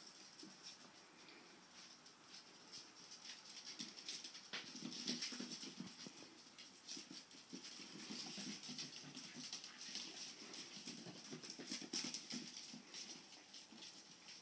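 Puppies playing and wrestling on a hard floor: a busy patter of small claws clicking and skittering, with soft puppy whimpers, getting livelier about four seconds in.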